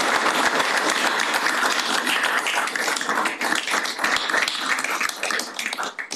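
Small roomful of people applauding, thinning out and stopping near the end.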